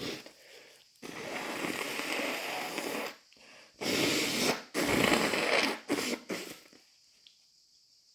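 A person blowing a congested nose hard into a tissue, three wet, snotty blows: the first about two seconds long, then a short one and a longer one, before it goes quiet.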